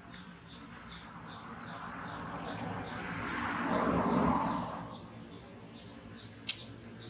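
Small birds chirping over and over in short high notes. A broad rushing noise swells for a few seconds, louder than the birds, then fades, and there is one sharp click near the end.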